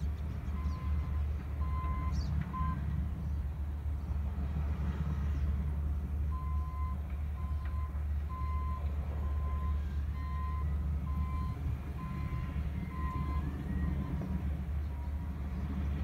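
Diesel engines of a Cat D6 bulldozer, an articulated dump truck and an excavator running at a distance as a steady low rumble. A backup alarm beeps over it, about one beep a second: a few near the start, then a longer run of about eight beeps in the middle.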